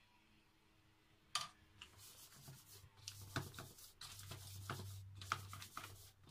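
Silicone spatula scraping and spreading cake batter in a paper-lined baking pan, and the pan being shifted on the stone counter to level the batter. Irregular scrapes and small knocks follow a sharp knock about a second and a half in.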